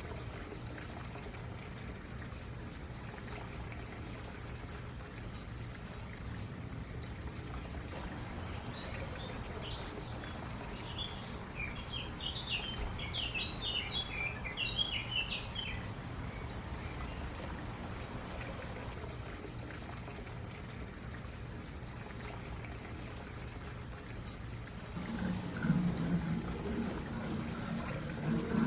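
Stream water trickling and flowing steadily, with a bird giving a quick run of high chirps for several seconds midway. A lower, louder sound comes in near the end.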